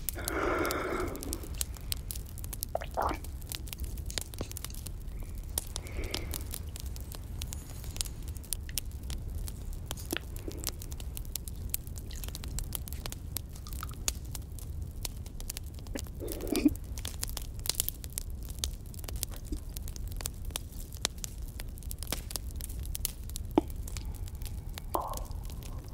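Crackling campfire: many small pops and snaps throughout over a low steady rumble. A few soft breaths and exhales of cigarette smoke close to the microphone come in now and then.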